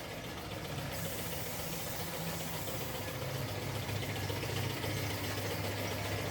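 A motor or engine running steadily with a low hum and some background hiss, growing slightly louder over the few seconds.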